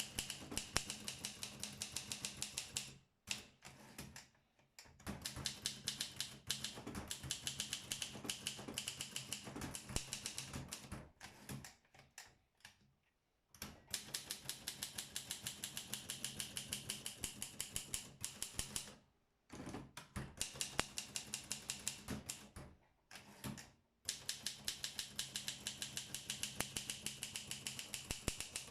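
Olympia SM7 manual portable typewriter being typed on quickly: runs of rapid, even key strikes several seconds long, broken by a few short pauses.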